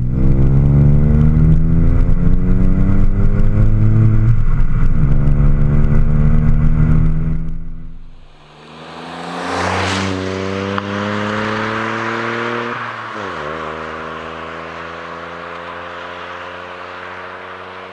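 Opel Karl's small three-cylinder engine through a stainless-steel aftermarket exhaust, heard close at the tailpipe, pulling hard with rising pitch and an upshift about five seconds in. About ten seconds in the car passes by, then pulls away through another upshift and fades into the distance.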